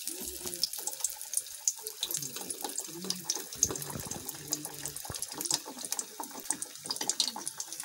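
Batter-coated potato pakoras deep-frying in hot oil: a steady sizzle dotted with many small pops and crackles.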